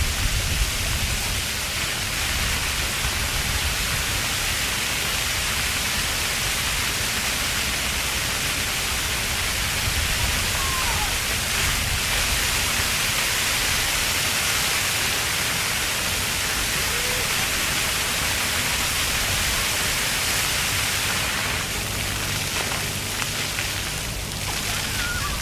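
Ground-level park floor fountain: water jets spraying and splashing onto the pavement in a steady rushing hiss. A few faint children's calls rise above it now and then.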